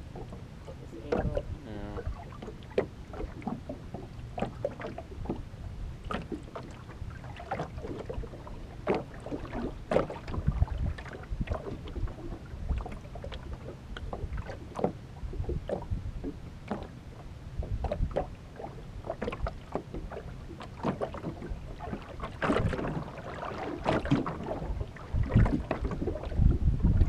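Wind buffeting the microphone while small waves slap against the aluminum hull of a drifting fishing boat: irregular knocks and splashes over a low rumble that gusts louder near the end.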